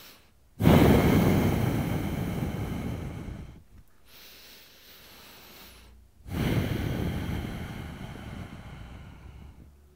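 A man breathing heavily to recover after exertion: two long, loud exhales, each starting sharply and fading away over about three seconds, with quieter breathing between.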